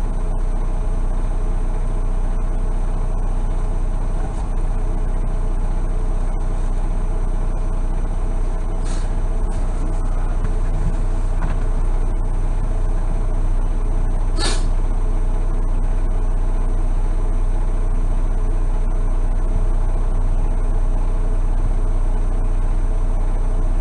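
Semi truck's diesel engine idling steadily, heard from inside the cab. There is a short hiss about nine seconds in and a louder one about five seconds later.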